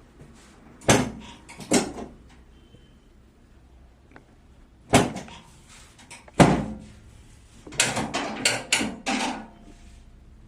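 Sharp thumps and cracks from hands-on chiropractic treatment on a patient's body. There are two hits about a second apart, two more a few seconds later, then a quick run of five.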